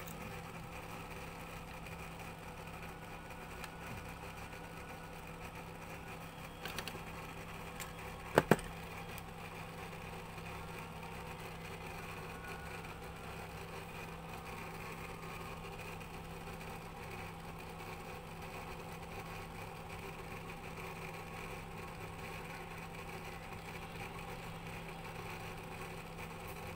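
A steady mechanical hum, with a few light clicks and a sharp double knock about eight seconds in.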